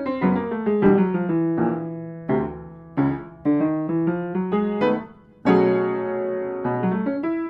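Piano music: a run of struck notes, then a chord held for about a second starting about five and a half seconds in.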